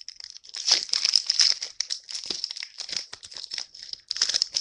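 Foil wrapper of a Magic: The Gathering booster pack being torn open and crinkled by hand, an irregular run of sharp crackling that stops abruptly at the end.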